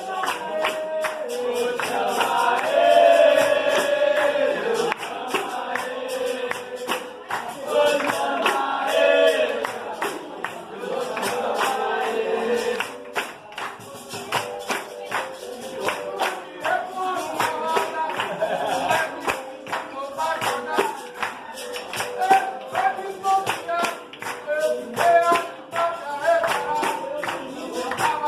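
Capoeira roda music: singing with a chorus answering over the even beat of pandeiros, backed by a steady held tone of the kind a berimbau gives.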